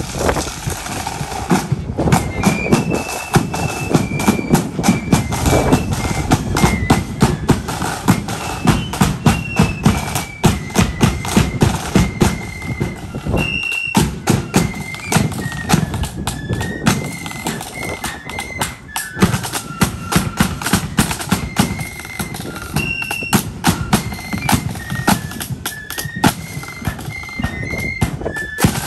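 Marching flute band playing: a shrill flute melody over rapid, steady side-drum beats and bass drum. The flute tune comes in about two seconds in.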